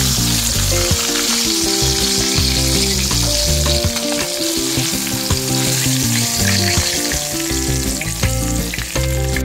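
Coated blue runner fish fillets deep-frying in hot oil, a steady bubbling sizzle, while metal tongs turn the pieces and lift them from the pan. Background music plays underneath.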